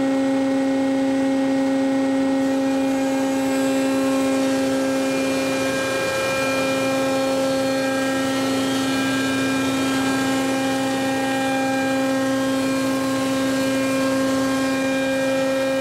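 Forklift battery changer running: a steady electric motor hum with a higher whine above it.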